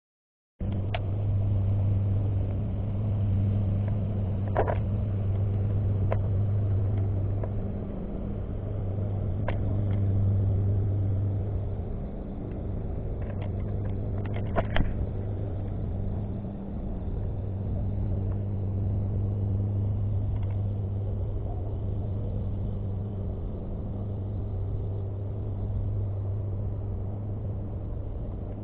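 Steady low engine drone, rising and falling slowly in strength, with a few light sharp clicks, the sharpest about halfway through.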